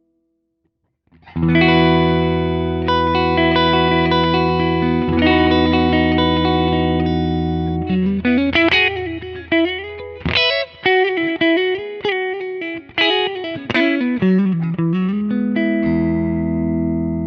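FGN J-Standard Iliad JIL2EW1G electric guitar played with distortion. After a second of silence, held chords ring for several seconds. A single-note lead line with string bends follows, and it ends on a sustained note that rings on.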